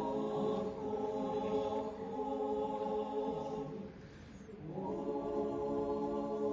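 A Ukrainian folk choir sings an old kant a cappella in long held chords. The singing breaks off briefly about four seconds in, then comes back on a new chord.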